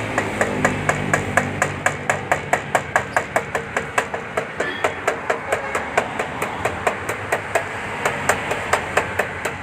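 Fast, even metallic hammer tapping, about five light strikes a second, each with a short ring, as the plastic radiator tank is fastened back onto the radiator core.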